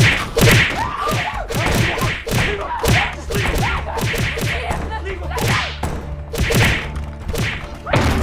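A fast string of dubbed-in cartoon sound effects: thumps, whip-like swishes and short sliding pitch glides, about two a second. A low steady hum joins about three seconds in.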